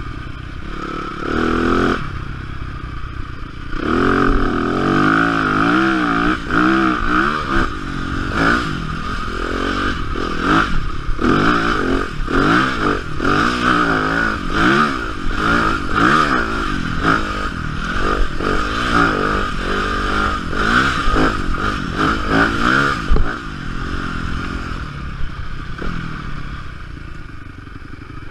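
Yamaha dirt bike engine being ridden hard, its pitch repeatedly rising and falling as the throttle is worked, with occasional knocks from the bike over bumps. The engine settles to quieter running near the end.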